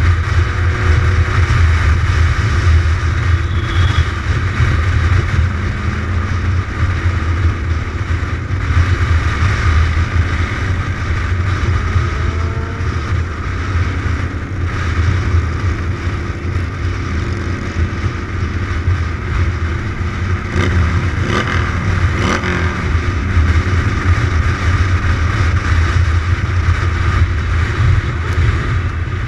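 Motorcycle engine running steadily at road speed, a deep continuous rumble under a constant hiss of wind noise on the bike-mounted camera.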